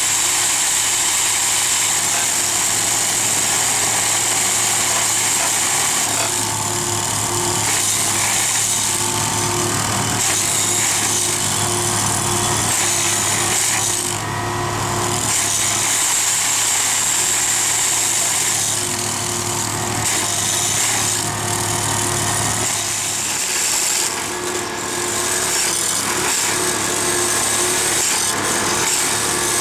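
Railway ballast tamping machine at work: its engine running while the hydraulic tamping tines vibrate and are driven into the ballast beneath the ties, a continuous loud, buzzing, jackhammer-like clatter. A steady low hum under it drops out about three-quarters of the way through.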